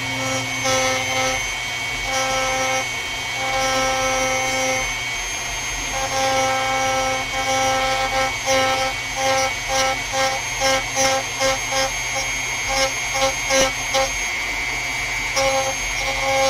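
Dremel rotary tool with a small cutoff wheel running at high speed, with a steady high whine, cutting lengthwise into a transponder's epoxy along its wires to expose them. The pitch of the cut comes and goes as the wheel is touched to the work, in a quicker run of short touches, about two a second, in the middle.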